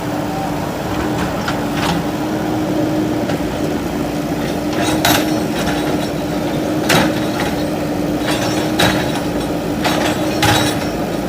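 JCB 3DX backhoe loader's diesel engine running steadily, with sharp knocks and clatter every second or two as masonry and debris are struck and broken during demolition; the knocks grow louder from about five seconds in.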